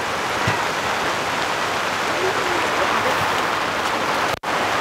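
Steady rain falling, an even, dense hiss that cuts out for an instant near the end.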